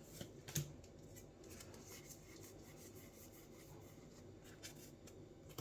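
Faint rubbing and rustling of trading cards being handled, with a couple of light taps in the first second.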